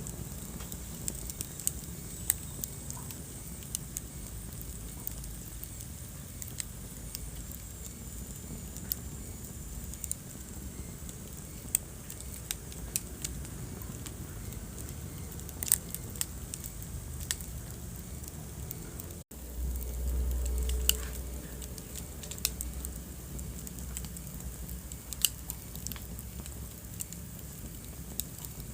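Wood fire burning in a fireplace, crackling with scattered sharp pops over a steady low rumble. About two-thirds of the way through, the sound cuts out for an instant and a louder low rumble follows for a couple of seconds.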